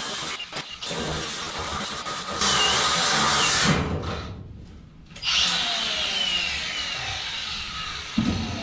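Power tool cutting through the corrugated steel wall of a shipping container, throwing sparks. It cuts loudest in a stretch a few seconds in, drops away briefly about halfway through, then starts up again.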